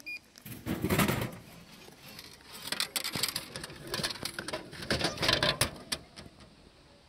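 Drinks vending machine: a short beep as the selection button is pressed, then a plastic drink bottle drops down the chute with a heavy clunk about a second in. Clattering and knocking follow as a hand pushes the clear flap of the dispensing slot open and takes the bottle out.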